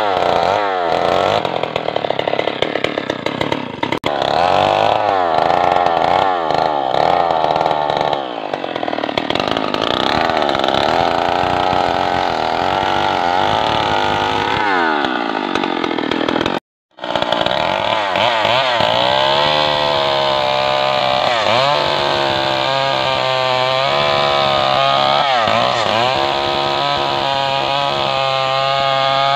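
Stihl MS 250 two-stroke chainsaw running at full throttle while cutting into a log, its pitch dipping and recovering as the chain bites. The sound drops out for a moment a little over halfway, then the saw runs on, cutting steadily.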